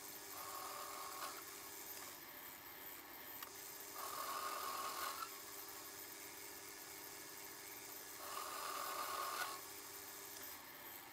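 Small metal lathe running with a steady hum while the tool turns a metal bar down. A rasping cutting noise comes in about every four seconds and lasts about a second each time.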